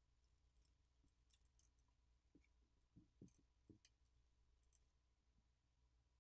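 Near silence, with faint crackling clicks from a thin graphite heat-spreader sheet being peeled off a smartphone's frame, and three soft low thumps a little after three seconds in.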